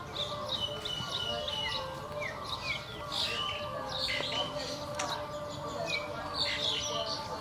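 Many birds chirping and twittering, with quick falling calls repeated throughout.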